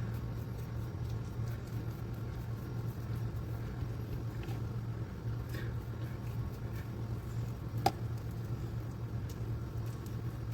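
Steady low hum, with a few faint soft clicks and one sharper click about eight seconds in.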